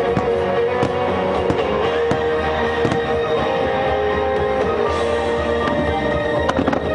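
Music with sustained tones, over which fireworks go off in scattered bangs every second or two.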